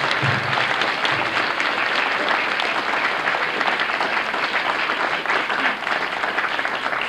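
Audience applauding steadily: many people clapping in a large hall.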